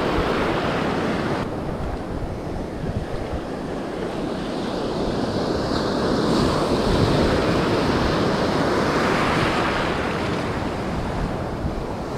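Surf washing onto the beach, with wind buffeting the microphone; a wave surges louder about halfway through.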